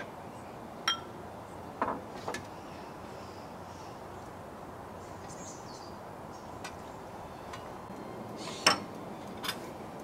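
Ladle and dishes clinking as soup is served from a stainless steel pot into porcelain bowls: about five short, sharp clinks with a brief ring, the loudest near the end, over a steady faint hiss.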